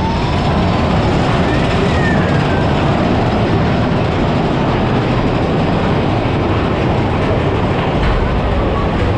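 Big Thunder Mountain Railroad mine-train coaster running along its track: a steady loud rumble and rattle of wheels and cars, with a faint high wheel squeal near the start and again about two seconds in.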